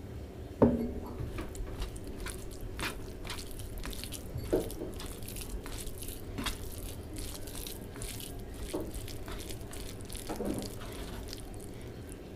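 Fingers mixing cooked rice with curry gravy on a plate, close-miked: soft wet squishes and small sticky clicks, with a sharp knock about half a second in.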